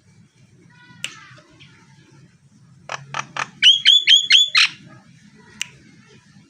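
A jalak Nias myna calling: a short call about a second in, then a quick run of sharp clicks leading into five loud, rapid two-tone notes, its 'tembakan' (shot) calls, and one more sharp note near the end.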